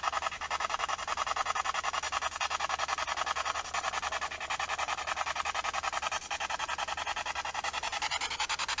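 Spirit-box radio sweeping rapidly through stations: hissing static chopped into even pulses, about nine a second.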